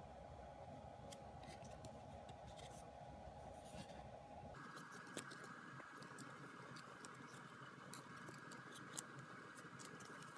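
Faint handling sounds of unboxing, scattered light clicks and scratches as of packaging or card sleeves being handled, over a steady background hiss.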